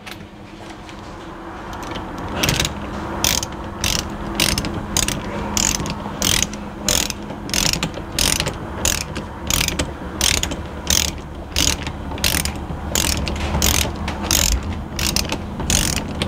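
Hand ratchet wrench swung back and forth to tighten the end cap onto a bicycle hub axle, its pawl clicking in short runs about twice a second, starting about two and a half seconds in.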